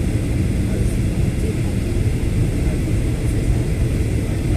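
Steady low rumble of an airliner in flight, engine and airflow noise as heard inside the passenger cabin while descending to land.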